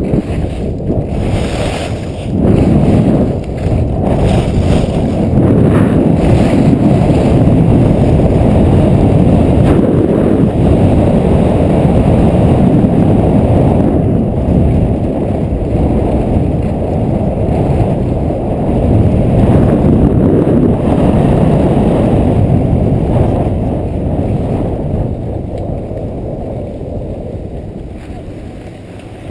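Wind buffeting a GoPro action camera's microphone during a fast ski run down a groomed piste, a loud, steady rush. It dies down over the last few seconds as the skier slows to a stop.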